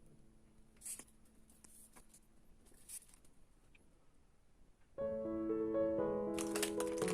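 Quiet at first, with a few brief rustles. About five seconds in, background piano music starts and carries on, with short crackly rustling noises over it near the end.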